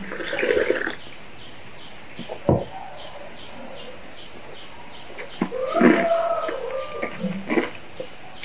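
Close-miked drinking and eating sounds: a sip of cola slurped from a glass mug about half a second in, a knock as the glass is set down on the table a couple of seconds later, then a longer run of mouth and swallowing sounds near the end. A faint high chirp repeats about four times a second in the background.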